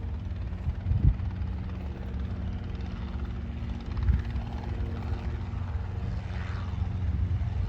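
Robinson R22 helicopter running, a steady drone of its rotor and engine, with two brief low thumps about a second and four seconds in.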